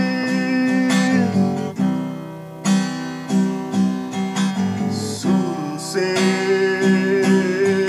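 Acoustic guitar strummed in chords. A man's voice holds the end of a sung note in the first second, and about five seconds in a long wordless note rises and is held.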